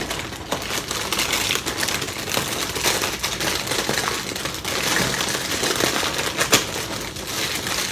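Plastic cereal bag crinkling as it is worked open, with a dense run of small clicks and rattles throughout.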